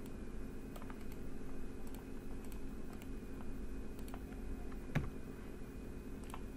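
Light, scattered clicks of a computer mouse and keyboard, with one sharper click about five seconds in, over a steady low hum.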